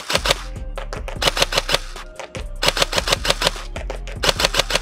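G&G BAMF Team Cobalt Kinetics M4 airsoft electric rifle (AEG) firing four quick strings of shots, the gearbox cycling at about ten clacks a second in each string. Background music plays underneath.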